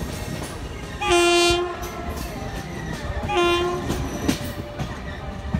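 Two blasts of a train's air horn, a longer one about a second in and a shorter one a couple of seconds later, over the rumble and clatter of coach wheels over rail joints as a passenger train moves through a station yard.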